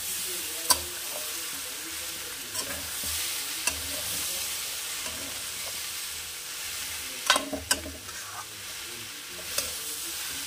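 Mixed vegetables sizzling as they fry in a metal kadai while a metal spatula stirs them, with a steady sizzle and a few sharp clinks and scrapes of the spatula against the pan, two of them louder about two-thirds of the way through.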